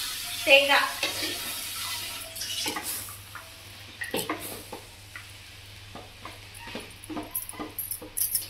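Metal spatula stirring and tossing cooked moringa leaves in a large aluminium pan: repeated short, irregular scrapes and taps against the pan, coming more often in the second half.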